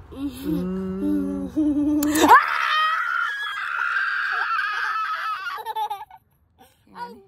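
A small boy laughing hard: a long, high-pitched shriek of laughter that breaks into short gasping bursts near the end. It comes after a low, drawn-out voice sound in the first two seconds.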